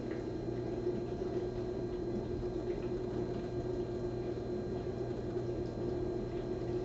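Steady background hum with a constant low tone and even noise, unchanging throughout.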